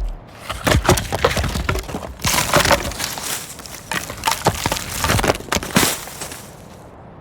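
Wood cracking and splintering: a dense, irregular run of sharp cracks and snaps that thins out near the end.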